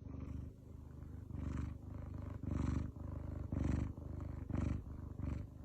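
Domestic cat purring close up, a steady low rumble that swells with each breath about once a second.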